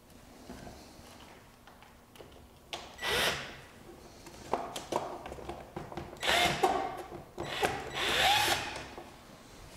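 Cordless drill-driver run in three short bursts, its motor pitch rising and falling with each, driving bolts into the sections of a pond aerator's intake screen. A few sharp clicks fall between the bursts.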